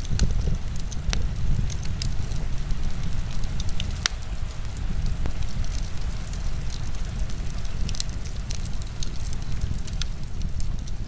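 Wood fire crackling with scattered sharp pops, one louder about four seconds in, over a steady low rumble and the hiss of heavy rain.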